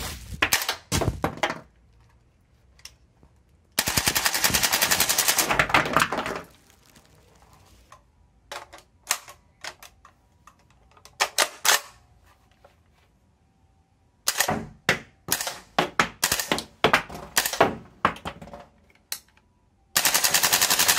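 Shell-ejecting toy M16 cap gun firing caps with sharp cracks. It fires two fully automatic bursts of about a dozen shots a second, one about four seconds in and one near the end. Between them come single shots and short strings of cracks with pauses.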